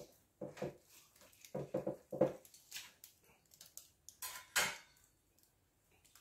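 Freshly cooked roast chicken being pulled apart by hand on a metal wire rack: a string of short tearing and cracking sounds with small knocks against the rack, two louder knocks near three and four and a half seconds in. The sounds stop about five seconds in.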